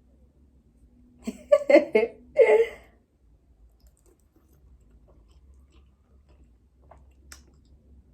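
A person eating spicy instant noodles: three or four loud, short mouth sounds about a second in, then quiet chewing with a few faint clicks.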